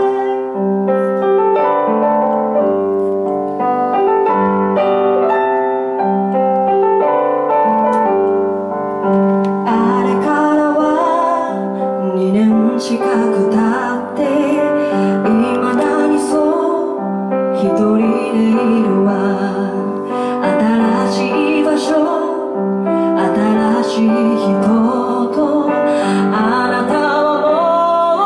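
Piano playing a slow passage alone, joined about nine seconds in by a woman singing over the piano accompaniment.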